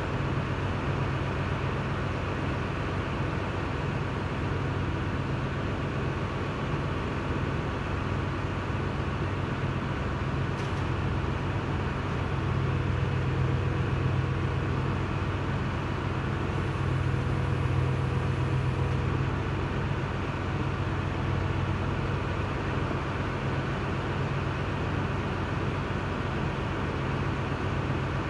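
A steady low drone of a running machine, unchanging in pitch, with one faint click about ten seconds in.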